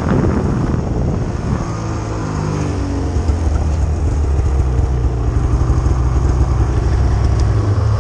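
Snowmobile engine running, with a rush of wind and snow at first, then dropping to a lower, steady note after about two seconds as the sled slows.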